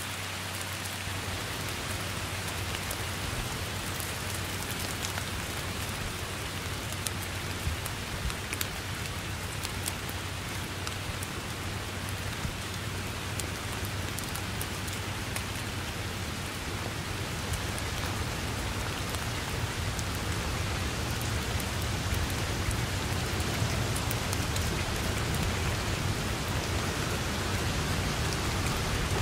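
Steady heavy rain falling on grass and foliage, with individual drops ticking sharply. A low rumble underneath grows stronger through the second half as the rain gets slightly louder.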